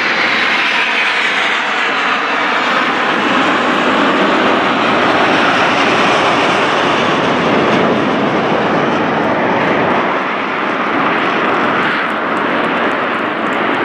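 Several Aermacchi MB-339 jet trainers passing low overhead: loud, steady jet noise from their Rolls-Royce Viper turbojets.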